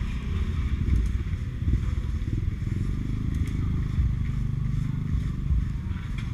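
Motorbike running while being ridden, a steady low rumble of engine and road.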